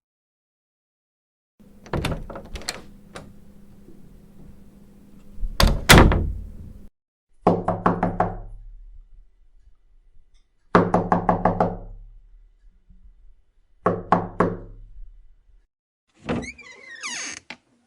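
A run of door sound effects. First a latch clicks, and a door slams loudly about six seconds in. Then come three bouts of knocking on a door, each a handful of quick knocks. A short wavering squeak follows near the end.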